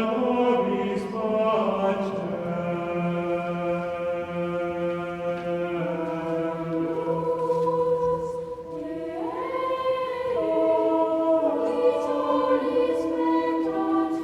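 Choir chanting a slow sacred piece in long held notes, several voices together, with a higher line entering about nine seconds in.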